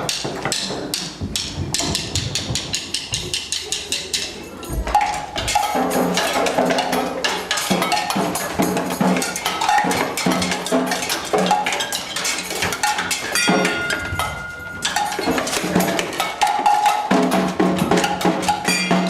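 Music with a fast, busy percussion beat that starts suddenly, with a lower pitched part joining about six seconds in.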